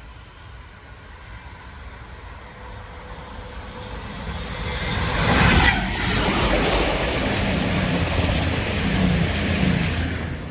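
Diesel-hauled freight train (Class 66 and Class 69 locomotives) approaching and passing. The engines grow louder and sweep past about five and a half seconds in, then the wagons rumble and clatter by steadily before fading near the end.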